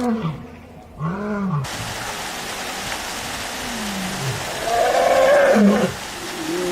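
Lion roaring: a series of deep calls that glide down in pitch, with the loudest, roughest roar about five seconds in. A steady hiss comes in abruptly about a second and a half in.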